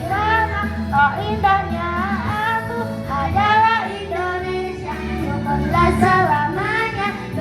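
Children's choir singing together over an accompanying music track.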